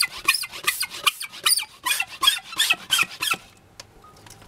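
Hand blow-out pump with its tube in a drilled hole in rock, pumped rapidly to clean out the hole before an anchor is set, each stroke a short squeaky rasp, about a dozen strokes; it stops about three and a half seconds in.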